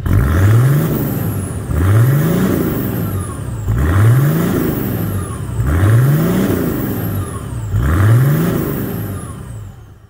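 Toyota Land Cruiser 76's turbocharged 1HZ 4.2-litre straight-six diesel, breathing through a 3-inch mufflered turbo-back exhaust, is free-revved five times about two seconds apart, each rev rising and then falling. A high turbo whistle falls away after each rev, and the sound fades out at the end.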